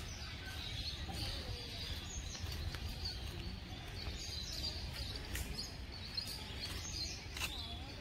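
Outdoor park ambience: birds chirping faintly here and there over a low steady rumble.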